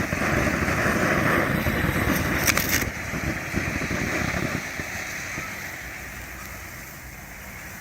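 A 500-gram fountain firework burning, a steady rushing spray with rapid fine crackling, loudest for the first three seconds and then gradually dying down.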